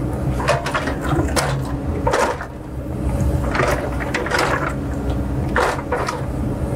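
Caterpillar heavy-equipment diesel engine running steadily, with irregular clanks and rattles about once a second from the working machine.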